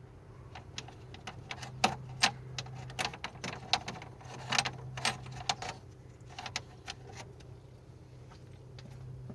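Irregular metallic clicks and clinks of hand tools working on the engine, some with a short ring, over a steady low hum.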